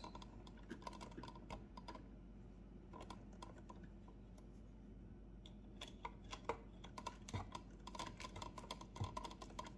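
Faint irregular clicking and scratching of a wire nut being twisted onto a bundle of five copper ground wires in an electrical box. The clicks come more thickly in the second half.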